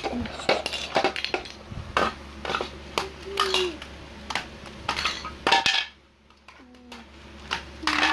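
Plastic Duplo building bricks clacking and knocking together in a quick, irregular run of sharp clicks, with a quieter gap around six seconds in.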